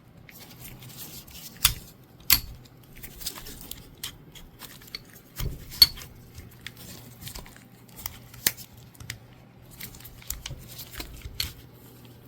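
Steel parts of a Springfield Armory Ronin 1911 pistol handled during reassembly: scattered sharp metal clicks, a few louder ones, with light scraping as the slide stop is worked back into the frame.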